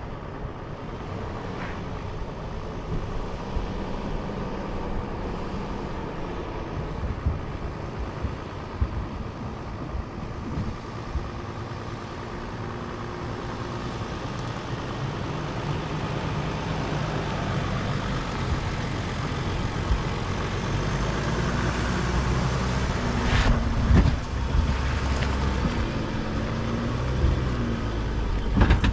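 Mercedes-Benz Sprinter 4x4 van driving slowly over a dirt trail toward the listener, its engine and tyres growing gradually louder as it nears, with a couple of sharp knocks near the end.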